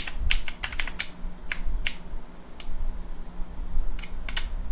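Keys and plastic keycaps of a Dierya Kemove 60% mechanical keyboard clicking and clacking in irregular clusters while keycaps are being fitted and pressed.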